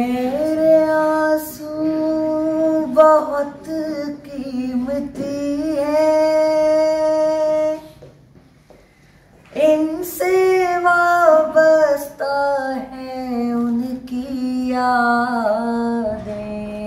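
A boy's voice singing an Urdu naat unaccompanied into a handheld microphone, holding long, drawn-out notes. Two sung phrases, separated by a pause of about a second and a half near the middle.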